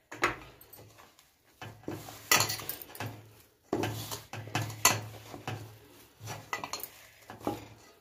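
A hand kneading a grated potato and arrowroot mixture in a stainless steel bowl: irregular knocks and scrapes of fingers and dough against the steel.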